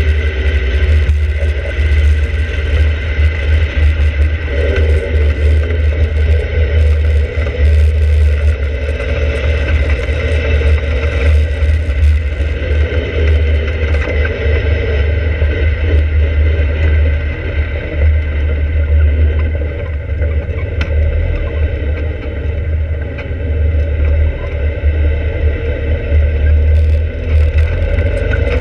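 Open-cockpit sports car driving at speed, its engine running under heavy wind buffeting on the microphone. The engine note rises about four seconds in and again near the end.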